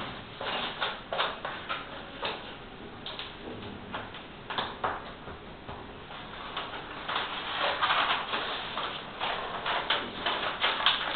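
Irregular scraping, rubbing and ticking of a hand squeegee and the sheet itself as a whiteboard sheet is pressed and smoothed onto a wall, with denser rustling in the second half.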